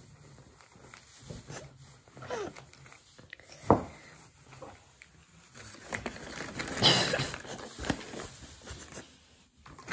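Paper napkin rustling and crinkling as it is handled, with a sharp knock about a third of the way in and a louder crinkle a little after the middle.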